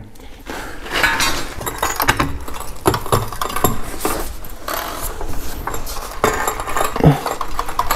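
Metal tools and suspension parts clinking, knocking and scraping in irregular clatters as the rear coil spring and shock are worked on under a Jeep Liberty.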